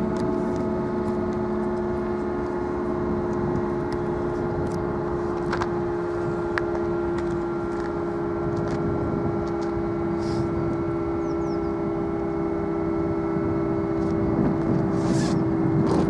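Broadmoor escape-warning siren on its tower, being tested and sounding a steady, unwavering tone with its overtones.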